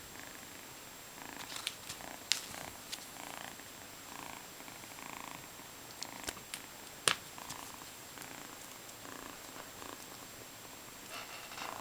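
Scottish Fold kitten purring in a steady rhythm, with a few sharp clicks, the loudest about seven seconds in.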